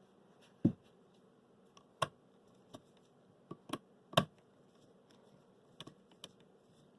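Scattered light clicks and knocks of a screwdriver and small parts being handled as small screws are driven in to assemble a stand. The sharpest knocks come about two-thirds of a second in and about four seconds in.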